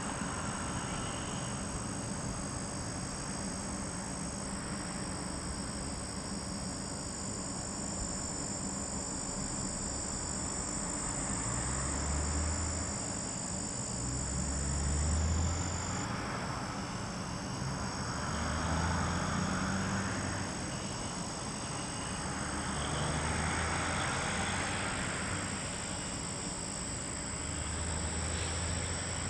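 Outdoor ambience of a steady high-pitched insect trill, crickets or similar, with a few passing road vehicles swelling and fading as low rumbles, the loudest about halfway through.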